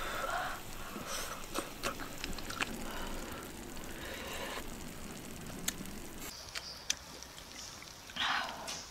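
Close-up eating sounds of baked oysters: chopsticks clicking against the shells, sucking and slurping the meat off the shell, and chewing. There is a short slurp near the end.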